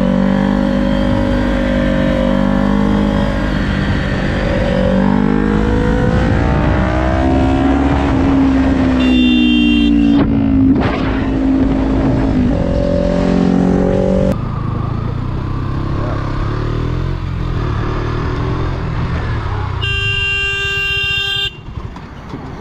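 Sport motorcycle engine heard from the rider's position, revving up and down through the gears so its pitch climbs and drops repeatedly. About 14 s in it gives way to another motorcycle running at a lower, rougher pitch. Near the end a horn sounds for about a second and a half.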